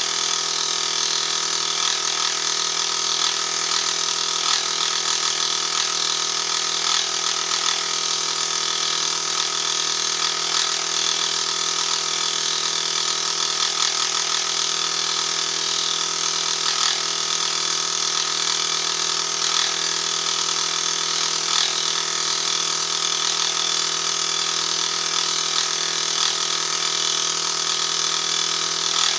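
Benchtop milling machine running steadily, its dovetail cutter taking a slow feed along a cast iron cross slide; an even motor and spindle hum with a high hiss over it.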